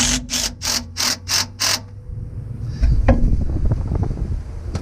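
Cordless brushless impact driver tightening a hose clamp on a coolant hose in six short trigger bursts, about three a second, then stopping. A single knock about three seconds in.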